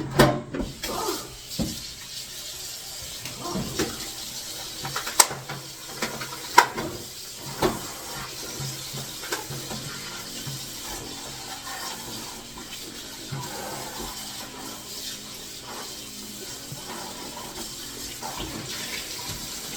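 Kitchen faucet running into the sink while something is rinsed under it, with several sharp knocks and clunks against the sink in the first half.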